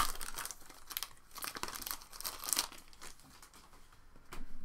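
Foil wrapper of a 2019 Upper Deck Marvel Flair trading-card pack being torn open and crinkled by hand, the cards pulled out. The crackling is busiest for the first two to three seconds, then thins to faint rustles.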